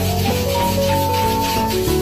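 Background music: a melody of held notes over a steady bass line, with a scratchy rubbing texture layered in.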